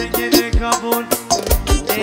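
Band dance music: a steady drum beat under a lead melody that bends and wavers in pitch.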